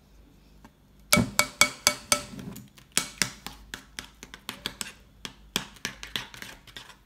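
A metal spoon clinking against a glass bowl while stirring clear glue and detergent activator into slime: a quick, irregular run of sharp taps with a short glassy ring, starting about a second in.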